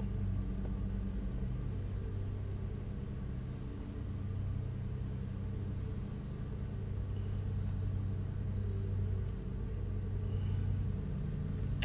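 Steady low hum of room background, with a faint high whine above it.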